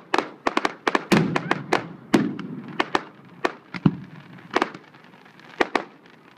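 Aerial fireworks shells bursting: a rapid string of sharp cracks and booms over the first three seconds or so, then a few single reports spaced further apart.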